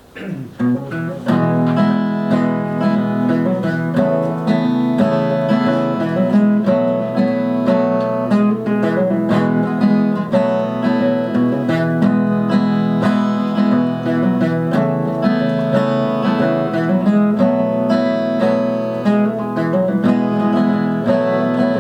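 Acoustic guitar playing a rhythmic instrumental introduction to a song, notes plucked in a steady pattern that starts about half a second in.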